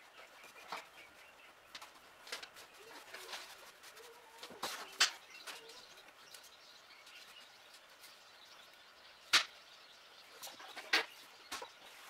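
Faint handling sounds of wires and braided wiring loom being worked by hand on a bench: soft rustling with scattered sharp clicks and taps. The sharpest taps come about five seconds and nine seconds in.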